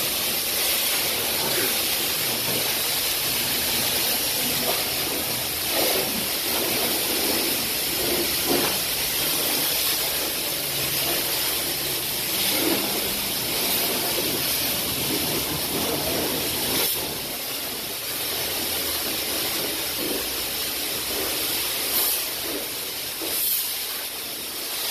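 High-pressure car wash spray wand hissing steadily as it blasts water onto an SUV's body, with brief dips and surges as the jet moves over different panels.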